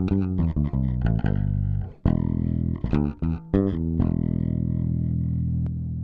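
Yamaha BBNE2 electric bass played through a Markbass Compressore valve compressor pedal: a quick run of plucked notes with a couple of short held notes. About three and a half seconds in, one low note is left ringing and slowly fades.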